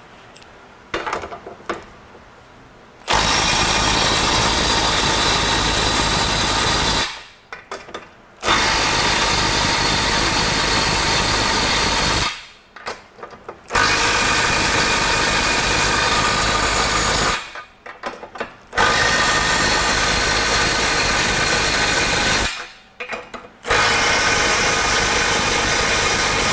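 Milwaukee M12 FUEL Stubby cordless impact wrench hammering nuts down as tight as it will go in power mode 3, in five runs of about four seconds each. Short pauses between the runs hold small clicks and clatter as the socket goes onto the next nut.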